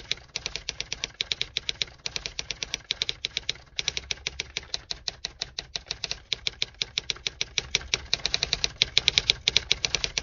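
Typewriter keys typing in a fast, even run of clicks, about seven strikes a second, with a brief pause partway through.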